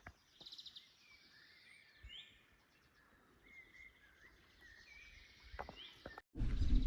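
Faint outdoor bush ambience with a few short bird chirps. Near the end, after a sudden break, a much louder low rumble of noise takes over.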